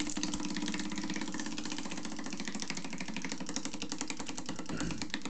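Prize wheel spinning fast, clicking rapidly and steadily the whole time.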